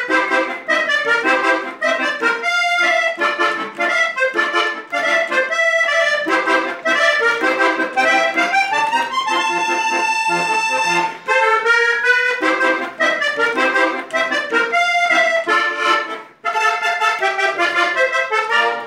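Hohner Corona diatonic button accordion played solo, a vallenato tune in quick runs of notes. About halfway through one note is held steady for a couple of seconds before the fast runs resume.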